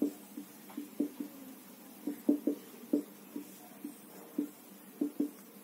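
Marker pen writing on a whiteboard: a string of short, irregular taps and strokes as the letters are drawn.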